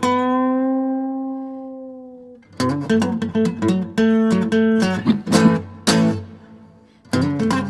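Acoustic guitar playing an instrumental intro: a chord is left to ring and fade out, then strummed and picked chords, another fade, and the picking starts up again near the end.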